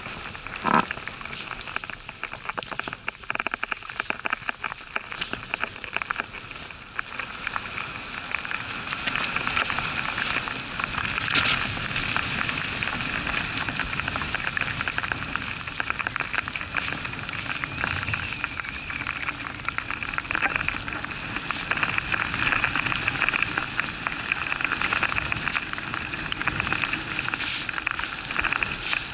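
Dense, steady crackling hiss of skiing in wind and snow, picked up through an action camera's housing. There is a thump less than a second in, and the noise grows louder from about eight seconds on.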